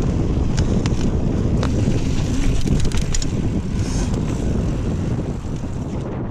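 Kona Honzo ST hardtail mountain bike riding dirt singletrack, with heavy wind rumble on the GoPro's microphone. Scattered sharp clicks and rattles come from the bike over the trail, and the sound tapers off near the end.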